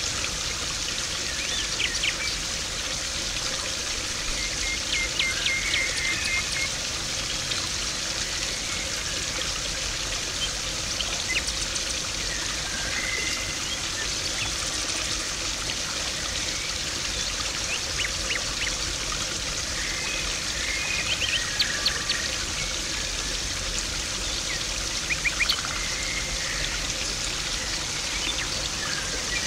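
Water splashing and trickling steadily into a garden koi pond, with a few sharper splashes now and then and faint bird chirps in the background.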